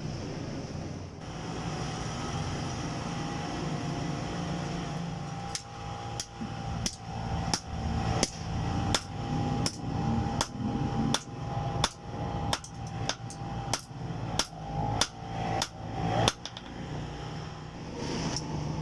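Hand hammer striking steel in a regular run of about twenty blows, a little under two a second, starting about five seconds in after a steady hum. The blows are forging bearing steel into a knife blade.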